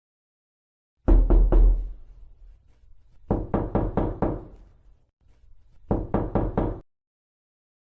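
Knocking on a door: three knocks about a second in, then a run of five, then another five near the end, each group a quick series of sharp raps.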